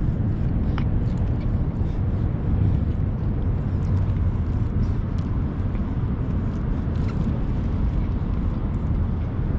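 Steady low rumble of wind buffeting the microphone, with a few faint clicks from cats eating off a metal dish.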